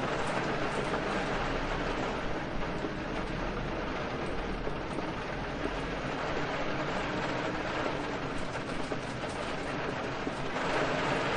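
Steady rain falling, with faint scattered drops ticking; it grows a little louder near the end.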